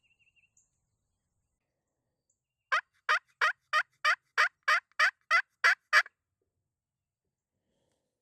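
A series of eleven loud turkey yelps, evenly spaced at about three a second, then silence.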